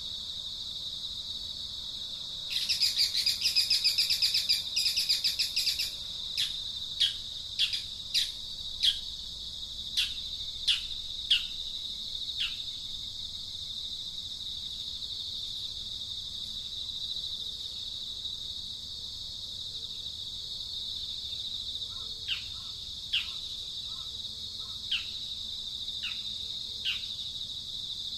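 Steady high insect buzz with birds calling over it: a rapid trill about three seconds in that lasts about three seconds, then a run of short falling chirps, about one a second, and another run later.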